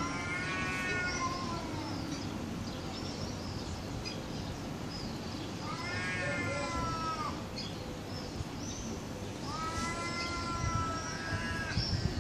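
Two cats yowling at each other in a standoff: three long, drawn-out howls, each rising and then falling in pitch, at the start, about six seconds in and about ten seconds in. These are the threat yowls that come before a cat fight.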